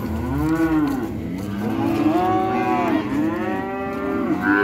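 Calves mooing over and over: about three drawn-out calls that each rise and then fall in pitch, the middle one the longest. A higher-pitched call begins near the end.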